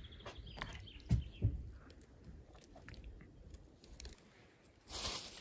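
People eating, with chewing and small clicks. Two sharp knocks come about a second in, and a rushing noise starts near the end.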